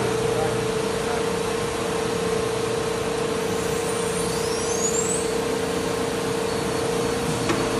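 CNC router running, with its linear tool-change magazine out: a steady mechanical drone with a constant hum. A faint high rising whine comes about four to five seconds in, and a single sharp click near the end.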